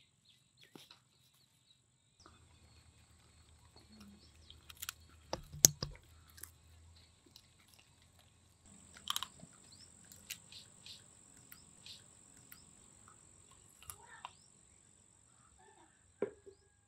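A dog eating biryani off a banana leaf: soft scattered chewing clicks and smacks, with one sharp click about five and a half seconds in. Birds chirp faintly over a thin, steady high whine.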